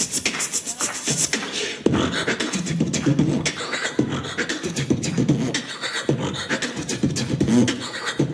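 A person beatboxing: quick, uneven clicks and snaps mixed with low hummed vocal tones.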